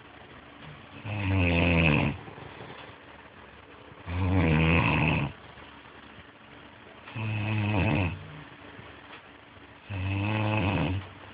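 Loud, regular snoring from a sleeper: four long snores about three seconds apart, with quieter breathing between them.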